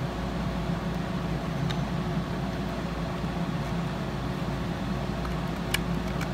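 Steady low mechanical hum in the room. Near the end there are a couple of faint clicks as the USB cable's plug is pushed into the portable hard drive's socket.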